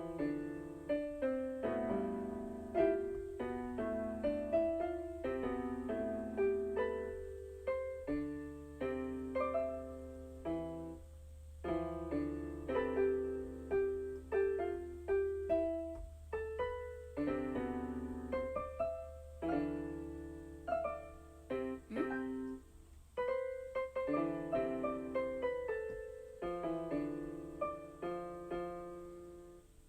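Keyboard music in a piano voice: a melody of separate struck notes and chords, each fading after it is played, with brief pauses about a third of the way in and again near the end.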